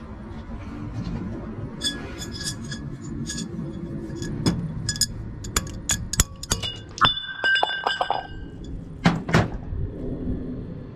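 Steel tools and loose parts clinking against the cast-iron body of a semi-hermetic compressor as a cover is taken off: a run of sharp metal clinks. A piece rings briefly about seven seconds in, and two louder knocks follow near nine seconds.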